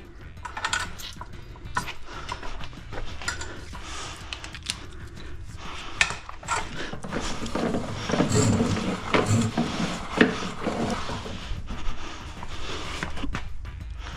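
Irregular knocks and clatters of hard objects being handled, busiest about eight to eleven seconds in.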